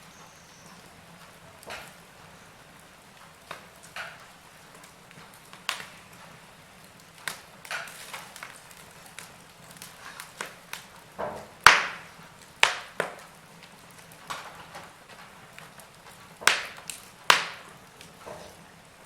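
Wood fire crackling in a fireplace: irregular sharp pops and snaps over a faint steady hiss, with a loud pop near the middle and a few strong cracks later on.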